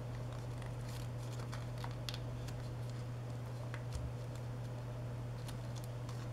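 A square sheet of origami paper being folded and creased by hand: scattered soft crinkles and ticks of paper, over a steady low hum.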